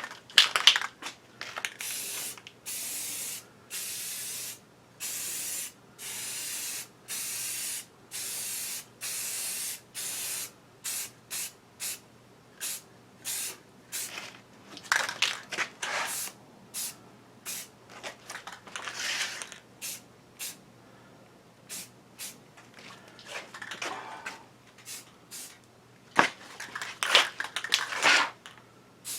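Spray paint hissing out in a series of short bursts, about one a second for the first ten seconds or so, then shorter, irregular bursts with a few louder, rougher ones.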